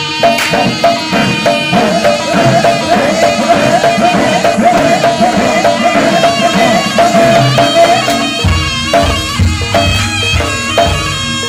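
Jaranan Kediri ensemble music played live: drums and percussion keep a steady beat under a high, wavering melody line. About eight seconds in the melody line drops out, leaving the percussion with deeper drum strokes.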